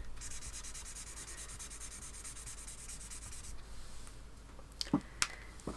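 Alcohol marker nib scrubbing quickly back and forth on sketchbook paper, blending grey tones; the scratchy strokes stop about three and a half seconds in. A few light clicks follow near the end.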